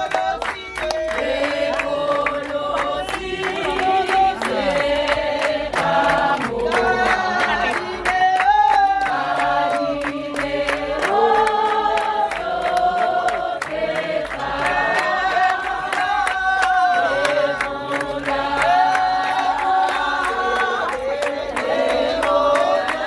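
A choir singing in harmony, holding long notes that change every second or two.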